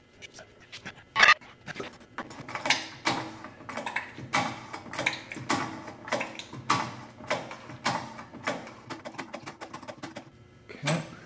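Air and hydraulic fluid sputtering out of a cracked-open line fitting while a cab tilt hydraulic system is bled, in short spurts repeating a little under twice a second. A sharp click about a second in.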